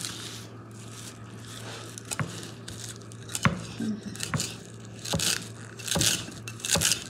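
Chef's knife chopping fresh parsley on an end-grain wooden cutting board: sharp knocks of the blade on the wood about once a second, with crisp crunching of the stems growing busier in the second half.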